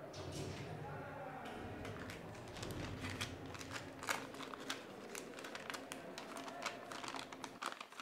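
A folded paper letter being unfolded and handled, rustling and crinkling in many small crackles.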